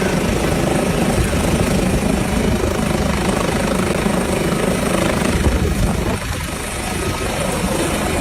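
Helicopter running steadily overhead, its rotor chop and turbine making a loud, continuous noise.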